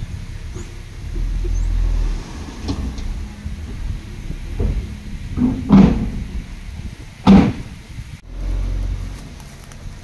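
Diesel engine of heavy earthmoving machinery running at a low rumble that swells twice. Two loud clunks come about a second and a half apart, past the middle.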